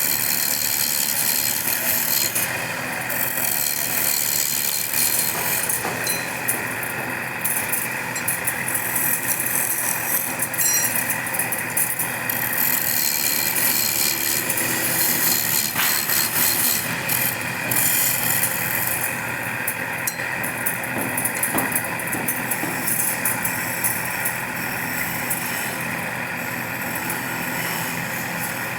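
Woodworking power tool running steadily with a constant motor hum, its cutter working wood with a hiss that rises and falls.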